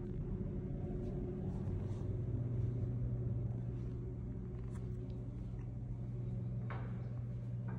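Steady low room hum, with a faint tap near the end.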